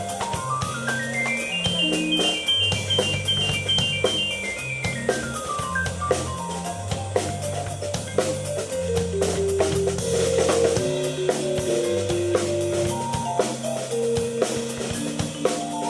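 Keyboard and drum kit playing a rock jam live. Quick keyboard note runs climb high and come back down over a low bass line, with a steady drum beat underneath.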